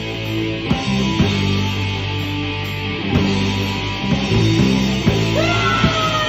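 Live heavy-metal band playing, with bass guitar, electric guitar and drums. Steady low bass notes and drum hits run under it, and about five seconds in a long note swoops up and then slides slowly downward.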